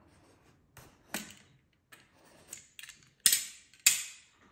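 Cardboard keyboard box being handled and opened: a few light knocks and scrapes, then two louder rasping scrapes of the packaging near the end.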